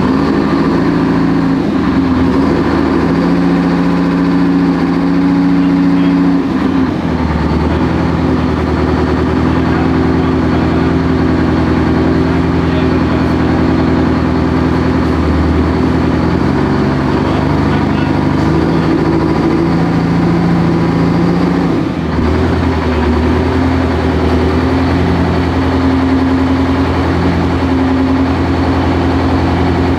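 Grant tank's Detroit Diesel engine running loudly and steadily. Its engine speed shifts up and down several times, most clearly about seven seconds in and again around twenty-two seconds.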